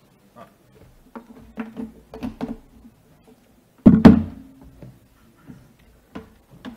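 Handling noise from plugging a laptop's power cable in at a desk: a run of light knocks and clicks, then one loud thump about four seconds in with a short low ring, then a few faint clicks.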